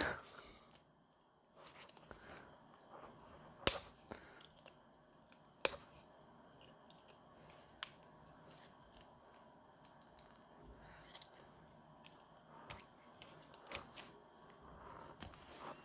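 Plastic shell of a counterfeit power bank being pried off its battery pack with a scalpel: scattered small clicks, creaks and scraping, with two sharper clicks about four and six seconds in.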